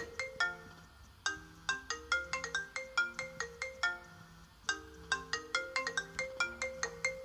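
A phone ringtone melody of quick, bright mallet-like notes, played in repeating phrases with short pauses about a second and about four seconds in.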